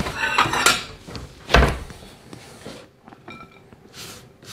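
Wooden kitchen wall cupboard being opened and a plate taken off the shelf with a clatter of dishes, then the cupboard door shut with a thump about one and a half seconds in. Light clinks follow, and a soft brushing near the end as grated cheese is pushed onto the plate.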